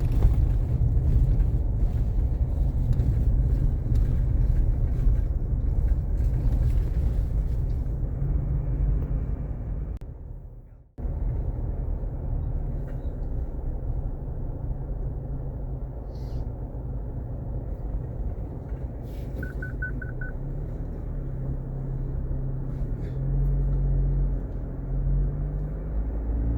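Steady low rumble of a motor vehicle running, which fades and cuts out briefly about ten seconds in, then resumes. A short run of rapid high beeps sounds near twenty seconds in.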